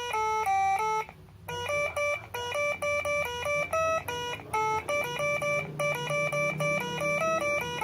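Telolet horn module playing a quick melody of short, evenly held notes with sharp starts and stops, with a brief pause about a second in.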